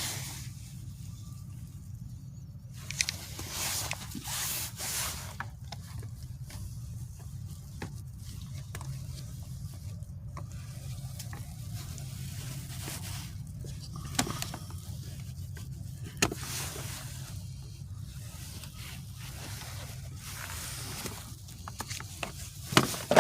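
Hand tools working on a manual transmission shifter assembly while a pin is taken out: scattered metallic clicks, taps and scrapes, with a couple of sharper knocks near the end, over a steady low hum.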